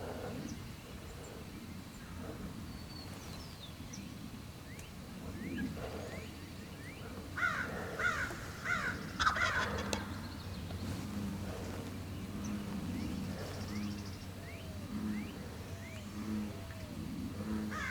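Wild turkey gobbler gobbling: one loud rattling gobble about seven and a half seconds in, running for about two seconds. Faint calls of other birds are heard around it.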